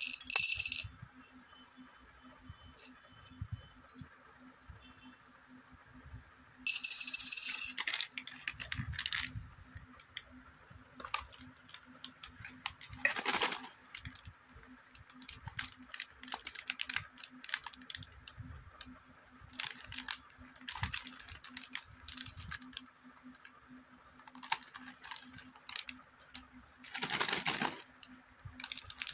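Small sugar-coated candy gems clattering onto a ceramic plate in quick ringing clicks, twice, near the start and again about seven seconds in. Then foil candy packets crinkle and rustle as they are handled, loudest about thirteen and twenty-seven seconds in, over a faint steady hum.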